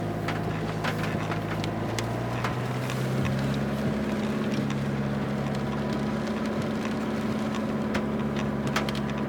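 Car engine pulling steadily in first gear up a steep hairpin climb, a steady drone whose note shifts about two and three seconds in, with scattered short clicks over it.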